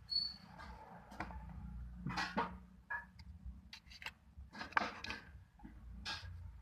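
Homemade glue slime being squeezed and kneaded by hand, giving irregular short clicks and squishes, with a few louder squishes about two seconds in and near the five-second mark.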